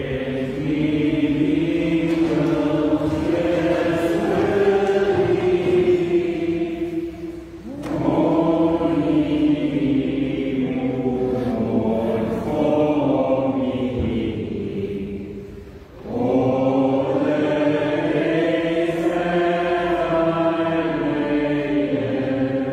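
Voices singing a slow hymn verse between the Stations of the Cross, in three long phrases of held notes with a brief pause for breath about 8 and 16 seconds in.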